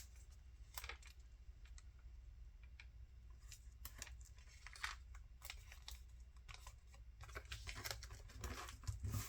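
Faint paper and card handling: scattered light rustles, crinkles and small taps as paper is worked and slid into place.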